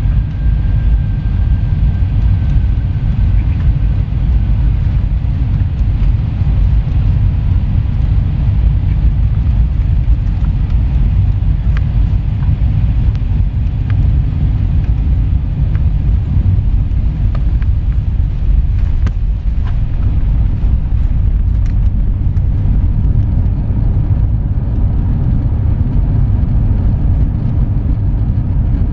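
Airbus A321 airliner noise: a loud, steady low rumble of engines and rushing air that does not change through the whole stretch.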